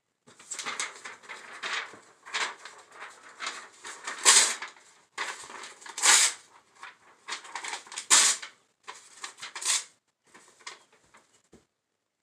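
Sheets of paper being handled at a dresser: a run of irregular rustling and crinkling bursts with short gaps, the loudest about four, six and eight seconds in.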